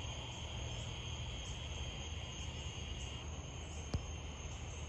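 Steady, high-pitched chirring chorus of insects; the highest strand fades out about three seconds in. A single faint click comes about four seconds in.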